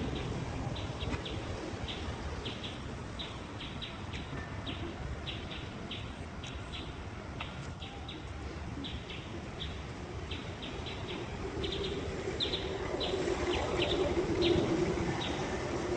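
Birds chirping: short, sharp, high chirps repeating irregularly several times a second, over a steady low rumble.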